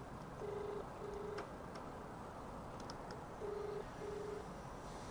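Mobile phone ringback tone on an outgoing call that is still unanswered: a steady low beep sounding in pairs, two short beeps about every three seconds.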